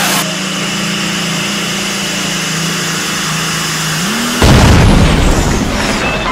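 A pulling tractor's engine runs hard with a steady drone, its pitch rising slightly. A little over four seconds in, a sudden loud bang as the engine blows up is followed by a noisy rush that fades over a second or two.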